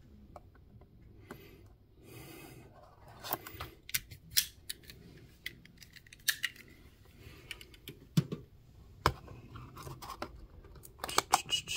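A small cardboard blind box being handled and opened by hand: scattered sharp clicks and scrapes, with a short tearing rasp about two seconds in.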